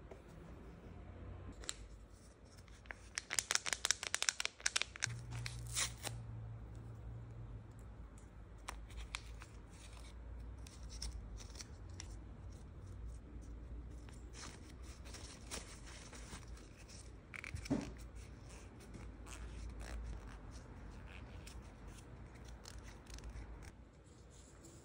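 Light scratching strokes and small snipping clicks of close-up nail-tip work, with a quick run of strokes about three to five seconds in, then scattered light clicks.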